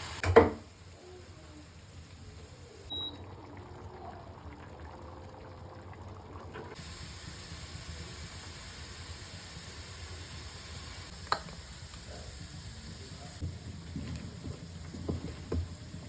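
Kitchen work sounds: a loud knock right at the start, then faint running-water hiss with a sharp click about eleven seconds in and a few scattered knocks near the end.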